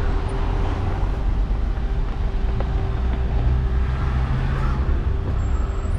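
Road traffic: motor vehicle engines running close by, a steady low rumble with a constant hum.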